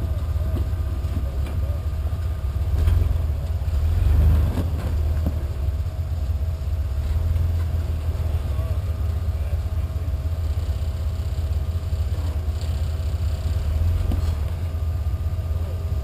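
Rock-crawling buggy's engine running slow under load as it climbs a near-vertical rock ledge, a steady low rumble with brief surges about three and four seconds in.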